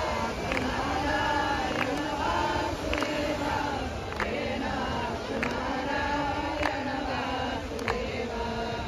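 Voices singing a devotional kirtan chant in slow, held notes, over a regular beat of sharp percussive strikes.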